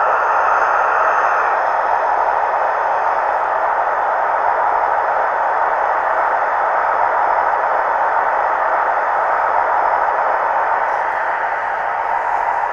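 Sound decoders (ESU version 4) in a pair of model HST 125 power cars playing a diesel engine idling sound through their small speakers, steady and unchanging. The model HST represents the original 1976 units, whose power cars had Paxman Valenta engines.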